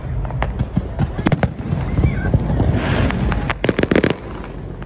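New Year's fireworks going off: a continuous low rumble of bursts with sharp bangs scattered throughout, and a dense run of crackling pops about three to four seconds in.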